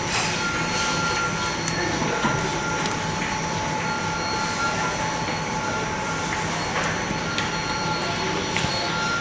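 Steady hum and hiss of workshop machinery with several constant whining tones, and a few faint clicks as plastic tablet casing parts are pressed together by hand.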